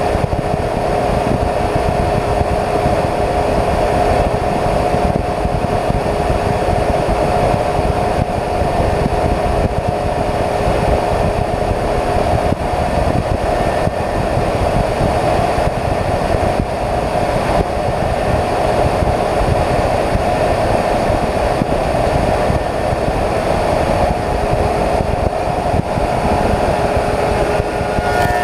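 Slab surfacing machine's cutter head with six insert knives running steadily, planing a willow slab: a loud, even machine drone with a steady high hum. A second, lower hum drops out about halfway and comes back near the end.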